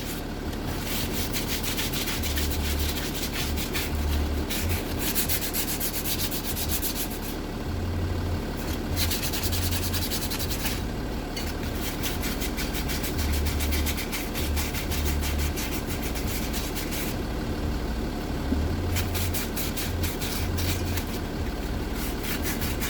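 Sandpaper rubbed by hand back and forth in the Jaguar XF's front hub housing, cleaning it up after the seized hub came out and ready for the new one. Rapid strokes come in spells of a few seconds with brief pauses between.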